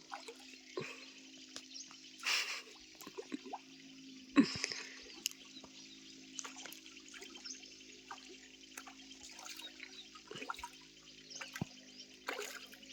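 Water splashing and dripping in small irregular bursts, with the sharpest splash about four seconds in, over a steady high hiss and a low hum.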